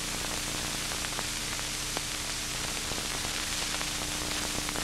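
Steady hiss with scattered faint crackles and clicks and a low steady hum underneath: the background noise of an old film soundtrack between narration lines.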